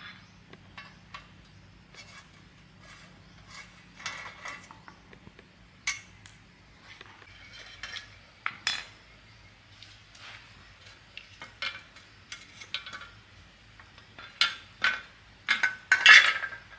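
Metal hand tools and metal parts clicking and clinking in irregular knocks, with a quick burst of louder clatter near the end.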